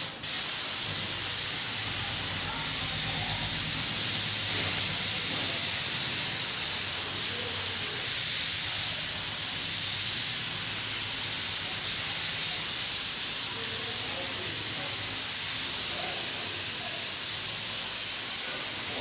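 Compressed-air spray gun spraying a coat of colour onto a wooden door: a steady high hiss of air and atomised finish.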